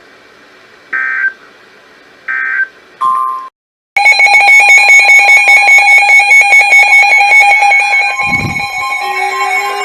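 Two short digital data bursts of a NOAA Weather Radio emergency alert (SAME) signal, about a second apart, then a brief tone. From about four seconds in, a loud electronic alarm sounds: a steady tone pulsing many times a second.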